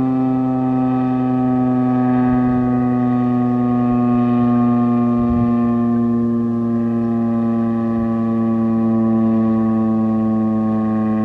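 Federal Signal STH-10A dual-tone outdoor warning siren sounding a chord that slowly falls in pitch, the rotors winding down at the end of a full-alert (steady tone) cycle.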